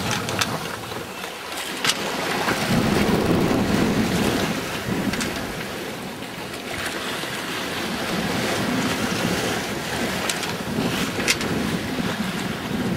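Wind buffeting the microphone over the rush of sea water along a small sailing yacht's hull, swelling and easing with the waves. A few sharp clicks stand out, one about two seconds in and one near the end.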